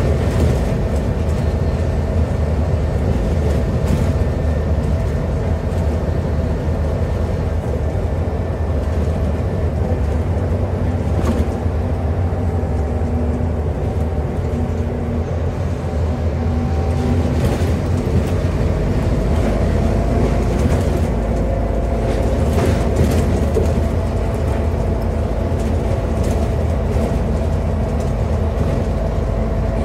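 Scania N280UD double-deck bus with a Scania DC09 five-cylinder diesel, under way and heard from inside the passenger saloon. A steady engine and road rumble runs under a faint whine that shifts slightly in pitch about halfway through, with occasional clicks and rattles from the body.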